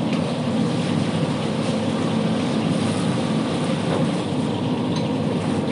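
Steady roar of a large gas burner firing on high heat under a 60-litre plov kazan.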